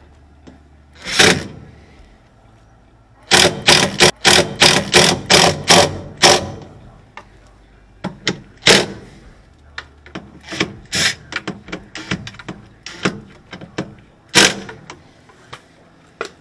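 Clatter of tools and metal washer parts being handled and fitted during reassembly: one loud rattle about a second in, a quick run of about six loud rattling knocks a few seconds later, then scattered sharp clicks and knocks.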